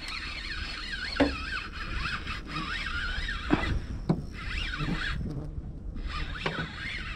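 Spinning reel being cranked to bring in a hooked pike, a high wavering tone that comes and goes with the winding, over a steady low rumble and a few short knocks.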